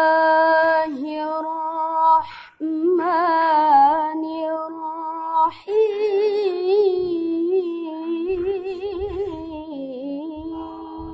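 A woman chanting Quran recitation (tilawah) in a melodic style. Three long drawn-out phrases with wavering, ornamented pitch, the last one fading out near the end.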